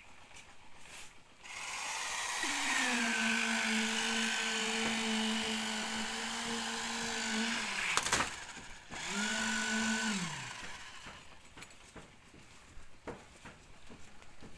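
Power tool motor running steadily for about six seconds with a high hiss over it, a sharp knock, then a second short run whose pitch falls away as it is switched off.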